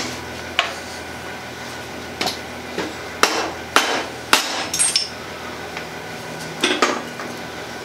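Hammer tapping a new ball bearing down onto an electric motor's armature shaft, a shrink fit with the bearing warmed and the armature chilled. About nine sharp, irregularly spaced knocks, the strongest near the middle.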